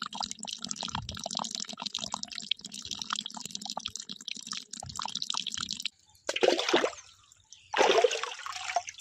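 A thin stream of water from a miniature pump's pipe pouring into a shallow puddle in a sand furrow, trickling and splashing, over a low steady hum. About six seconds in it stops, and two louder, short bursts of splashing water follow.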